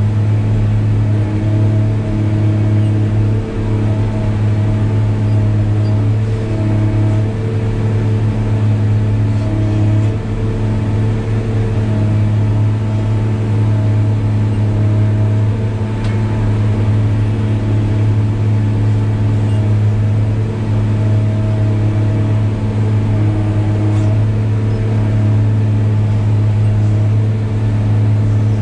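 New Holland RG140B motor grader's diesel engine running steadily: a constant low drone, with fainter higher tones wavering on top.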